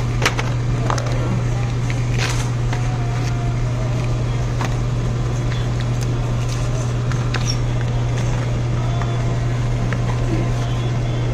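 Grocery store ambience: a steady low hum with scattered clicks and knocks of handling and faint background voices.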